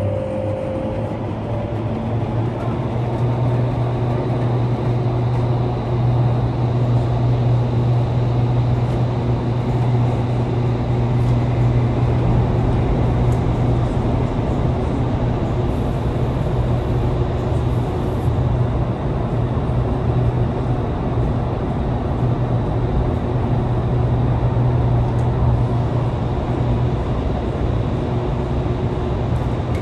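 Vertical wind tunnel for indoor skydiving running at flying speed: a steady rush of air from its fans with a strong low hum, heard from outside the glass flight chamber.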